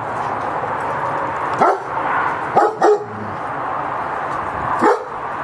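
German shepherd barking four short times, two of them in quick succession about halfway through, over a steady background noise.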